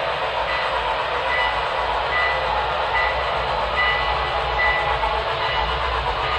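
HO scale model freight trains running on the layout, their sound-equipped locomotives giving out a steady train rumble and rolling noise. A brief high squeal comes and goes several times.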